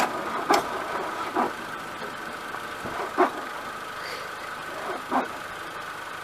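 A car engine running steadily at idle, with a few short sharp clicks or knocks every second or two.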